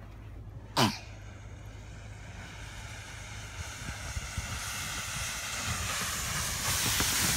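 Kayak hull sliding down a snowy slope: a scraping hiss that grows steadily louder as it comes closer. About a second in, a brief sharp sound falling quickly in pitch is the loudest moment.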